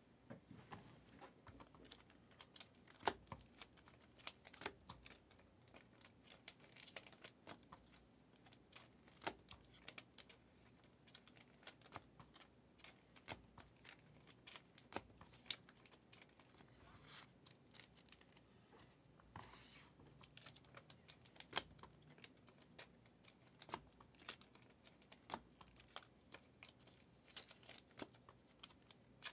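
Faint, irregular taps and clicks of typing a text message on a phone, a few a second with short pauses.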